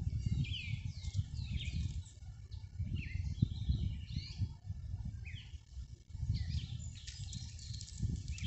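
Wild birds chirping, many short calls that sweep quickly down or up in pitch, coming every half second or so and thickest near the end, over an irregular low rumble.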